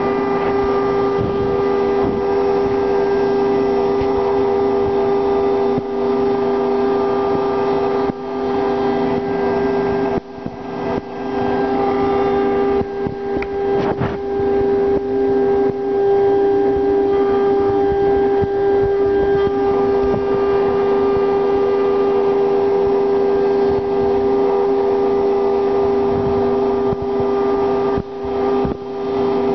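CNC router spindle running at a steady high-speed whine while its bit carves a wooden figure turning in the rotary axis, with rough cutting noise from the wood. The cutting noise drops away briefly a few times as the bit eases off the work.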